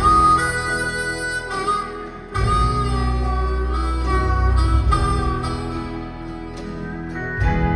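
Harmonica playing long, held lead notes in an instrumental break of a country song, backed by guitar. The bass and the rest of the band come in fuller about two and a half seconds in.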